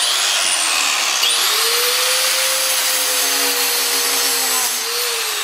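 Angle grinder running at full speed and grinding into an iPhone 6: a loud, dense rasp with a high whine, starting abruptly at the outset and easing slightly near the end.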